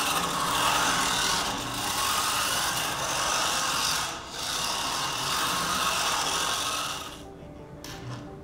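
Mini-Z First Subaru Sambar RC truck driving on a wooden floor: its small electric motor and gears whine and its tyres hiss, rising and easing with the throttle. The sound dips briefly about four seconds in and falls away about seven seconds in as the truck slows.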